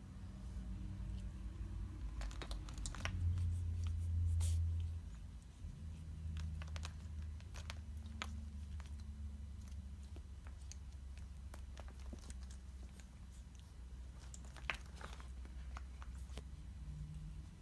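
Scattered light clicks and rustling of a cat pawing and biting at a string of lights, over a steady low hum.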